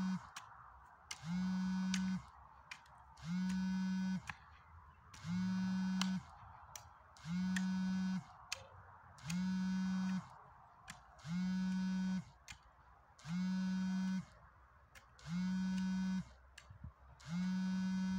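A low electric buzz pulsing on and off at an even pace: each buzz lasts nearly a second and comes about every two seconds, about nine times. Faint sharp clicks fall in the gaps between the buzzes.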